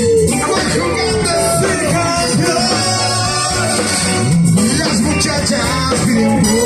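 Live band playing loud amplified Latin music, with electric guitar and bass under sung vocals.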